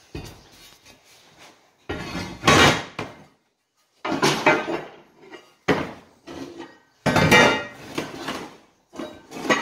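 A flat steel plate being handled against a steel floor and the metal edge of a truck bed: several separate bursts of metal scraping and clanking, each about a second long.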